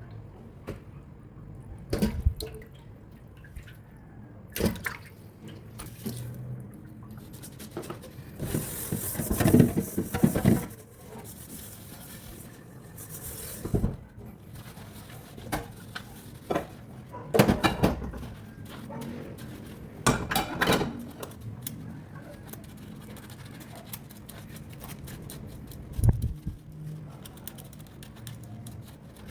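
Water splashing and dripping in a kitchen sink as food or dishes are washed, with irregular knocks of bowls or utensils and a few louder spells of running water lasting a second or two.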